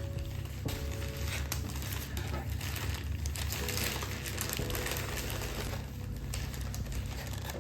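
Packaging crinkling and rustling as it is handled and opened, a continuous dense crackle.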